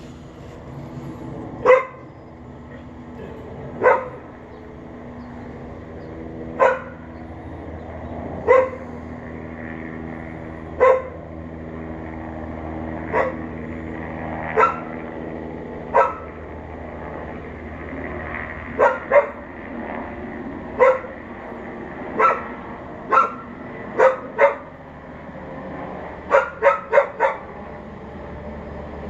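A dog left outside alone barking on and on: single barks every two to three seconds, a few doubled, quickening near the end into a run of four fast barks.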